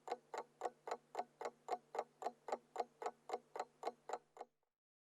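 Mechanical alarm clock ticking fast and evenly, about four ticks a second, over a faint low hum. The ticking stops abruptly about four and a half seconds in.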